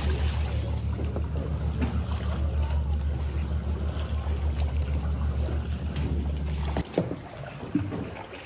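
A boat engine running with a steady low hum and a fast even pulse, stopping suddenly about seven seconds in. After it, a quieter stretch with a few light knocks.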